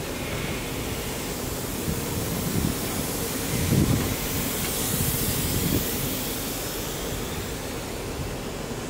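Loaded HYA coal hopper wagons of a freight train rolling past: a steady rumble and rush of steel wheels on the rails, swelling briefly about four seconds in.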